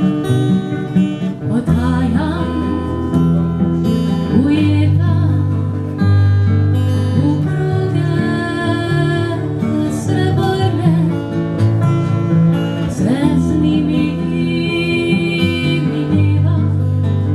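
Live acoustic folk music: a woman singing over a strummed acoustic guitar, with a cello holding long low notes underneath.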